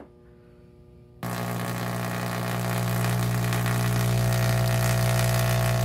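Vacuum tube Tesla coil (GU-81M) switching on and firing. About a second in, a loud, steady low buzz with crackling hiss starts suddenly and holds as a spark streamer discharges from the top load into the air.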